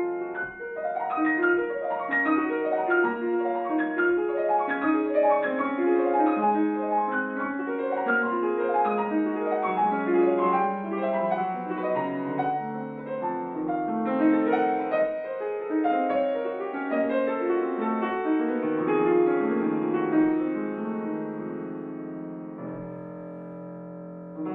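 Grand piano played solo in a classical piece: a flowing passage of many overlapping notes. It thins out and fades over the last couple of seconds, just before a loud new entry at the very end.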